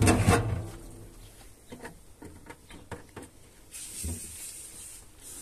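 Plastic oil canister handled against the tractor: one sharp knock, then a few lighter clicks and taps.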